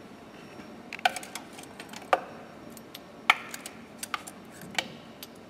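Scattered sharp metallic clicks and clinks, about half a dozen at irregular intervals, as spark plugs are pulled from the plug wells with a long pickup tweezer and knock against the tool and each other in a gloved hand.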